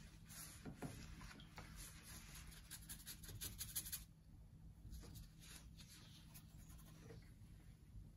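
Faint scratchy strokes of a paintbrush working oil paint: a quick run of short strokes for the first few seconds, then a few scattered strokes.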